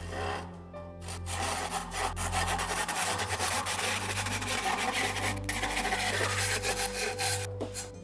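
Fine-finish crosscut hand saw cutting through white cedar in quick back-and-forth strokes. The sawing starts about a second in and stops near the end.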